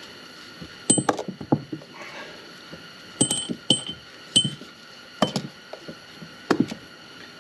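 Steel roller pins and star of a Bobcat hydraulic drive motor's geroler section clinking against the metal parts as they are pulled apart and set down: about six sharp metallic clinks with a brief ringing tone, spread unevenly over several seconds.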